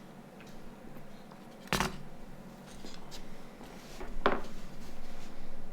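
Small phone housing parts being handled and fitted by hand on a work surface: a few light clicks and two sharper knocks, about two seconds in and about four seconds in.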